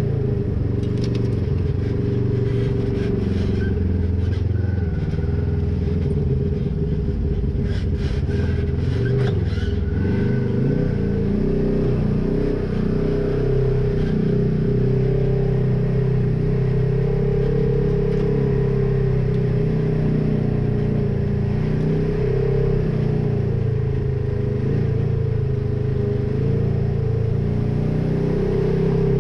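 Polaris RZR side-by-side engine running steadily at around 3,500 rpm while driving a dirt trail, heard from inside the cab. A few sharp clicks of rattling come about eight to ten seconds in.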